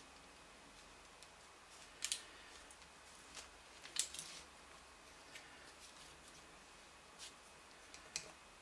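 Sparse light clicks and taps, about half a dozen, the loudest about two seconds and four seconds in: parts of a cassette tape mechanism being handled on the bench.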